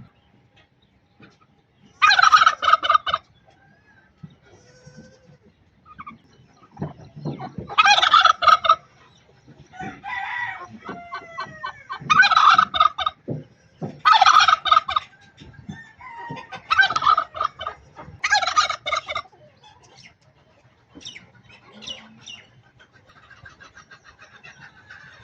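Domestic turkey gobbling repeatedly: six loud rattling gobbles of about a second each, with softer clucks and calls in between.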